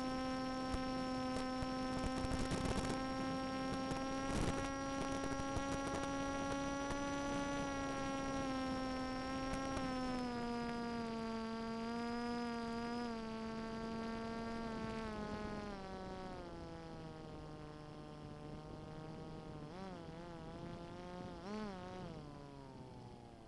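Electric brushless outrunner motor and propeller of an FPV flying wing running with a steady buzzing whine. Its pitch drops in steps from about 10 s on as the throttle is eased back, wavers twice near the end, and the sound gets quieter.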